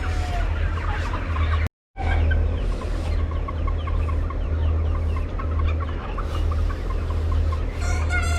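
A flock of chickens clucking and calling over one another, with a steady low hum underneath. The sound cuts out for a moment about two seconds in, and a longer crowing call begins just before the end.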